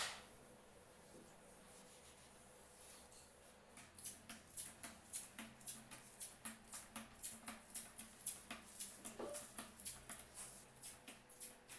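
A hand wiping a white laminate panel in quick back-and-forth strokes, a dry rhythmic rubbing about three strokes a second that starts about three and a half seconds in.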